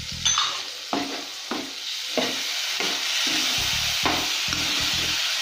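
Blended tomato sizzling as it hits a pan of potatoes frying in masala, while a metal slotted spoon stirs and scrapes against the pan with short knocks. The sizzle thickens into a steady hiss about two seconds in.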